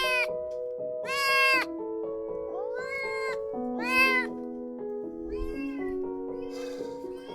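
Kitten meowing over and over, about six short, high mews roughly a second apart, the loudest about four seconds in, over background music of slow held notes.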